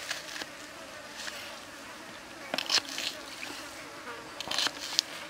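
Large knife slicing through a peeled onion on a wooden cutting board: short, crisp crunching cuts, with two clusters of louder cuts about two and a half and four and a half seconds in. A steady insect buzz runs behind them.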